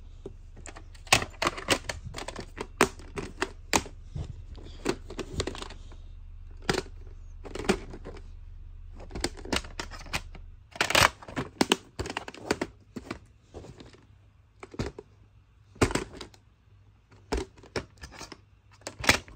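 Hard plastic clicks and clatter of VHS cassettes and clear plastic clamshell cases being handled: tapes set into the cases and the cases closed and stacked, in quick irregular taps and knocks.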